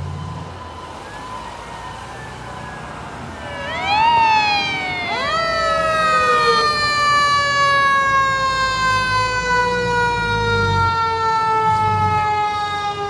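Fire engine's siren sweeps sharply up twice, then winds down in one long, slowly falling wail as the truck approaches. The truck's engine rumbles low beneath it.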